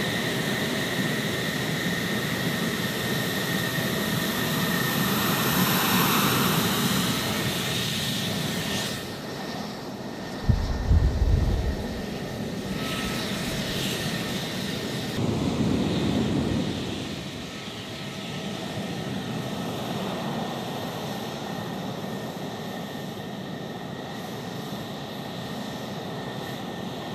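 F-16 Fighting Falcon's jet engine at taxi power: a high whine over a steady rush of noise as the fighter taxis past. A brief low rumble comes about ten seconds in and is the loudest moment.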